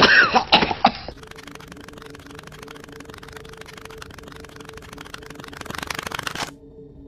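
A cartoon character coughing and spluttering for about a second. After that comes a faint steady hiss with a low hum beneath it, and the hiss cuts off near the end.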